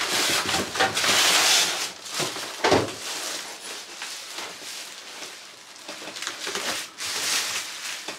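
Clear plastic wrapping crinkling and rustling as grill parts are pulled out of a cardboard box, loudest about a second in and again near the end, with a short dull bump between.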